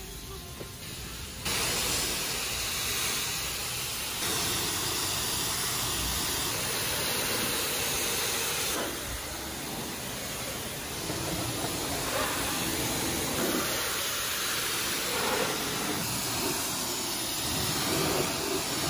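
High-pressure water jet from a self-service car wash spray wand hitting a car's body, a steady hiss. It starts suddenly about a second and a half in and changes in level a few times.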